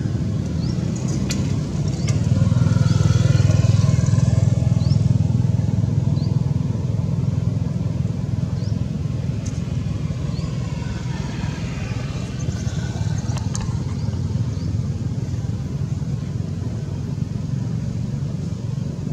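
A motor vehicle's engine running steadily, loudest a few seconds in as it passes with a falling pitch, then passing again more faintly about twelve seconds in.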